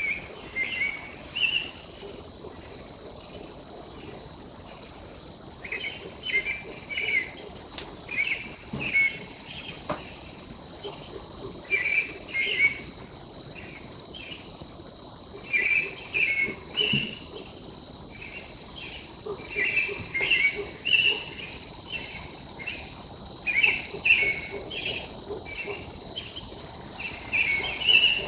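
An unidentified songbird singing in the dark before dawn: short, high phrases in quick runs of several, with pauses of a few seconds between runs. Under it runs a steady high-pitched insect chorus that never lets up.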